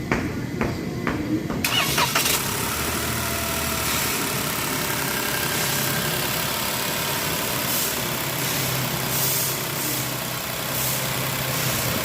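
Toyota Corolla Cross engine starting after a few sharp knocks, catching a little under two seconds in, then idling steadily. The owner takes the running noise for abnormal.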